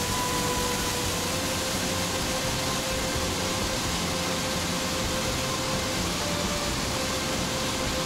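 Waterfall pouring into its plunge pool: a steady, even rush of water. A few faint held music notes sound underneath.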